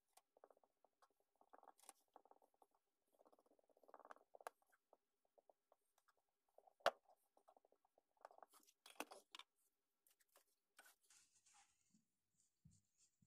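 Faint rubbing and soft patter of fingers working beeswax from a tin onto a wooden hammer handle, with one sharp click about seven seconds in. Near the end comes a brighter rustle of a cloth buffing the handle.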